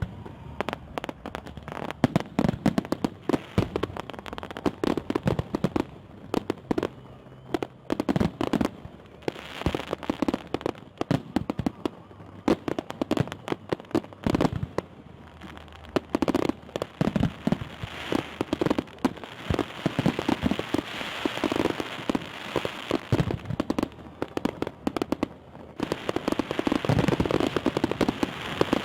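Fireworks salute going off: a dense, irregular run of sharp bangs and crackling, growing thicker and louder in the second half.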